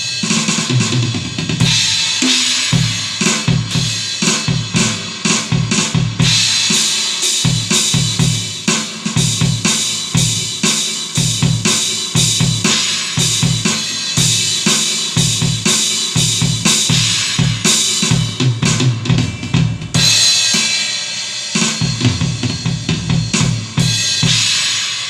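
Roland V-Tour electronic drum kit played as a steady rock beat: kick drum, snare and crashing cymbals, with several fills and cymbal crashes along the way.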